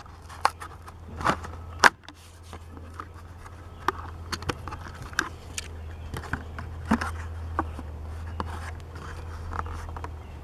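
Clear plastic blister of a Hot Wheels toy car pack crackling and clicking as it is pried and peeled off its cardboard backing card. The sharpest snaps come in the first two seconds, and a steady low hum runs underneath.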